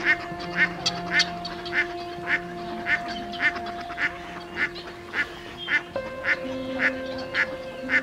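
Waterfowl calling over and over in short, evenly spaced calls, just under two a second, over a steady droning music bed whose note shifts about six seconds in.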